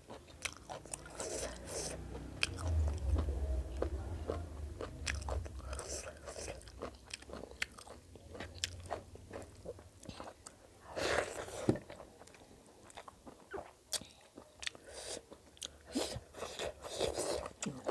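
Close-miked mukbang eating: a person biting and chewing food, with many sharp, crisp crunches and wet chewing, a louder bout of crunching about eleven seconds in. A low rumble sounds for a few seconds near the start.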